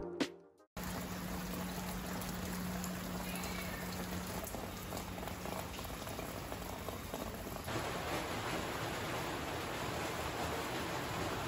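Steady rain falling: a continuous even hiss that gets slightly louder about eight seconds in.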